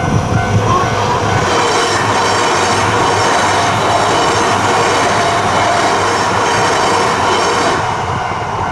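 Yamagata Shinkansen train running through a level crossing at speed, a steady loud rush of wheel and rail noise that eases near the end. Underneath it, the crossing's warning bells keep ringing and come back through as the train clears.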